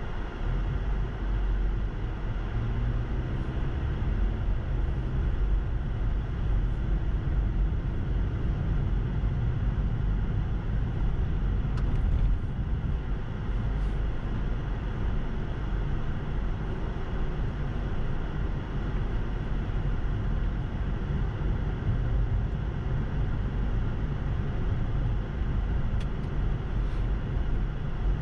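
Car driving, heard from inside the cabin: a steady low rumble of engine and tyres on a snow-packed road. It gets louder right at the start as the car pulls away from a stop, then holds steady as it speeds up to about 45 km/h.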